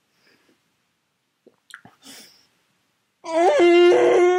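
A man chewing a sour gummy worm, with faint wet mouth sounds and a couple of small clicks. About three seconds in he lets out a loud, long vocal cry at a steady pitch, a reaction to the sour candy.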